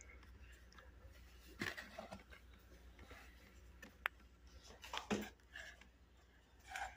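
Faint, scattered crunches and clicks from someone eating freezer frost, a few separate ones spread over several seconds with a sharp click near the middle.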